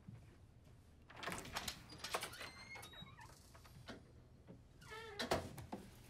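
Papers handled and shuffled on a desk, rustling in short bursts, with a brief pitched, wavering sound about five seconds in.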